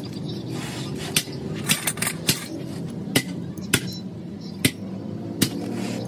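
Sharp metallic clicks and taps from steel hand tools striking the steel body of a bottle hydraulic jack: about eight at irregular intervals, over a steady low background hum.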